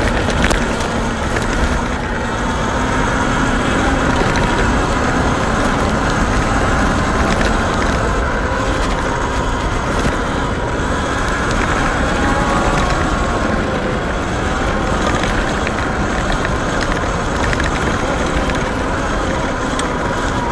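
Sur-ron electric dirt bike being ridden, its faint motor whine wavering in pitch under a steady rushing wind noise.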